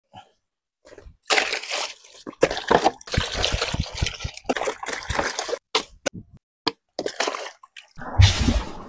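Wooden stick pounding and mashing watermelon pieces in a plastic tub of water, with repeated splashing and sloshing. Near the end, the watery pulp is poured out onto the ground.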